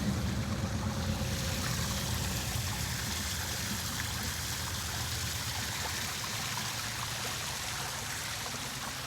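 A dense chorus of many frogs calling at once, blending into a steady, even wash of sound.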